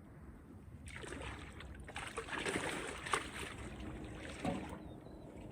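Water splashing and sloshing, with dripping, as a big carp is brought to the landing net and lifted out of the river. It starts about a second in and fades near the end.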